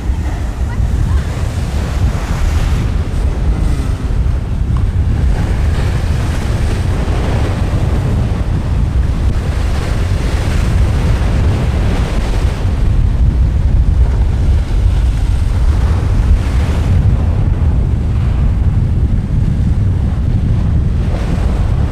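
Sea waves breaking and washing against a rocky cliff base, the surf swelling every few seconds, under strong wind buffeting the microphone.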